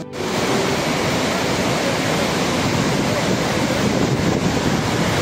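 Loud, steady rushing noise, starting abruptly just after a brief gap.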